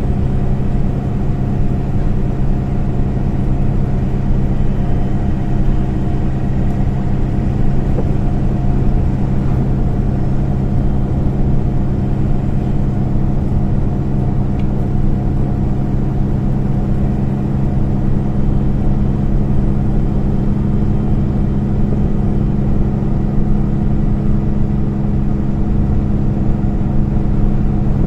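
Inside a moving MAN Lion's City A20 NL city bus: its diesel engine running steadily at cruise with a constant hum, over road and tyre rumble.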